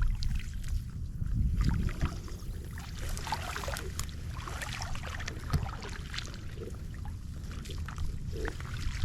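Legs wading through shallow flooded marsh grass: irregular sloshing and splashing of water with rustling grass, over a steady low rumble.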